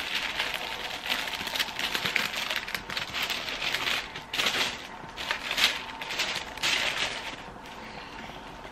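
Tissue paper rustling and crinkling as it is unfolded and pulled aside, in a run of irregular surges that die down near the end.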